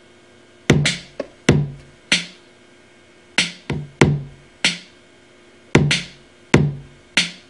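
A programmed drum-machine loop from Maschine's step sequencer: kick drum and snare hits in a repeating pattern about two and a half seconds long, with the snares on the second and fourth beats of the bar.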